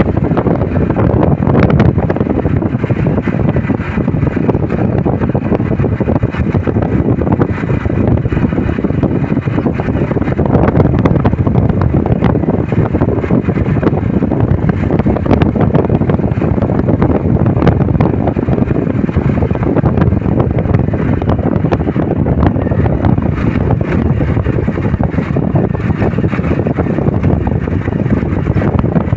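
Loud, steady wind buffeting the microphone of a moving vehicle, mixed with the vehicle's road noise.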